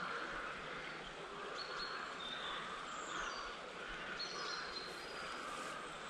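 Wild songbirds singing: a scatter of short, high chirps and whistles, some sliding in pitch, over a steady outdoor background hiss.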